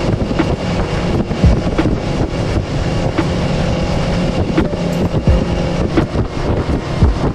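Small fishing boat under way with its outboard motor running steadily, wind buffeting the microphone, and frequent short thumps.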